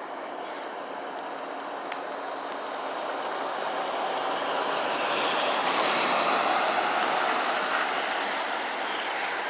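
A vehicle passing on the road: its tyre and engine noise swells to a peak about six seconds in, then fades.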